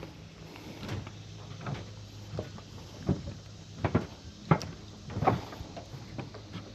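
Scattered knocks and thumps on a dock, about a dozen at uneven spacing, the loudest clustered in the middle.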